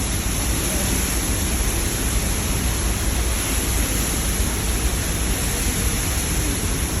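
The Horseshoe Falls at Niagara, a very large waterfall, giving off a steady, even rush of falling water.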